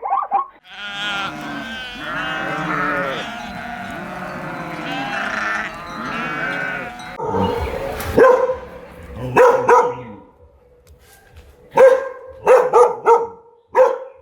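A flock bleating, many calls overlapping, for the first half. This is followed by a few separate short, sharp barks.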